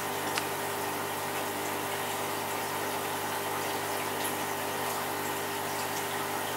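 Aquarium pump running steadily: a constant hum over the rush of moving water, with one faint click about half a second in.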